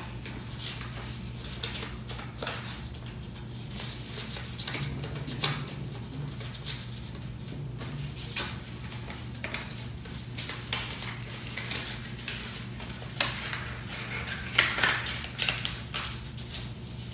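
Hands handling paper and packaging: scattered light clicks, taps and rustles, busiest and loudest in the last few seconds, over a steady low hum.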